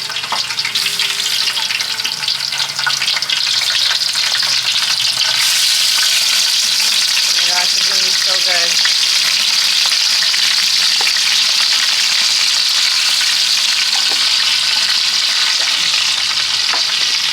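Chunks of beef frying in a hot pot, a loud steady sizzle with scattered pops. It grows louder over the first few seconds, then holds.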